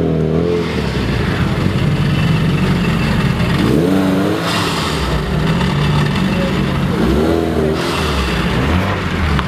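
Tuned 450 hp Lancia Delta HF's turbocharged four-cylinder through a decatted exhaust, revved in short blips about every three seconds, with a burst of popping from the antilag as each rev falls.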